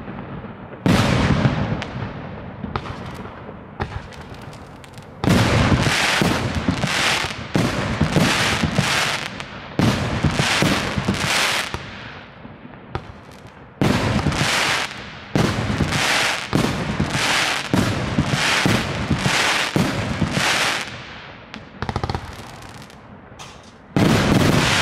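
A 36-shot, 2-inch (50 mm) mortar-style firework cake firing: shells launching and bursting in a rapid series of loud bangs, at times two or three a second, each dying away over a second or so. There are short lulls between volleys and a big final burst near the end.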